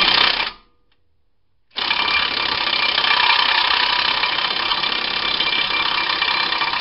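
Milwaukee cordless 3/8-inch electric ratchet running on a cross-threaded lug nut that is hard to get off: a run that stops about half a second in, a pause of about a second, then one long steady run of about five seconds.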